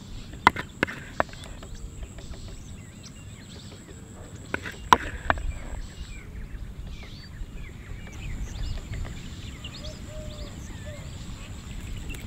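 A serving spoon knocking against a stainless steel bowl: three sharp knocks about half a second in and three more near five seconds, each about a third of a second apart, as curry is served. Small birds chirp throughout.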